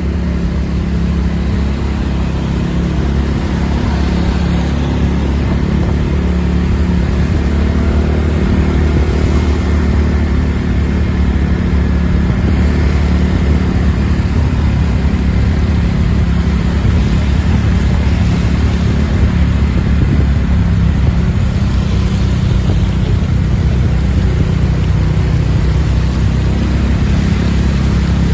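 Bus diesel engine running steadily: a continuous deep drone that holds at much the same level throughout.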